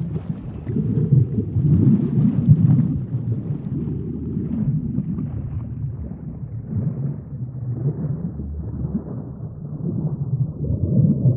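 Low, churning water rumble of an underwater ambience, with its energy mostly in the bass; it swells and eases unevenly and swells again near the end.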